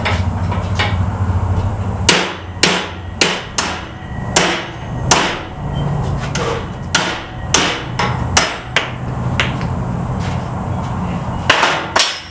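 Hammer blows on a chisel driving the bushing out of a 1977 Chevy El Camino front upper A-arm held in a bench vise: about a dozen sharp strikes in uneven bunches, starting about two seconds in. The bushing has already broken free and is moving out.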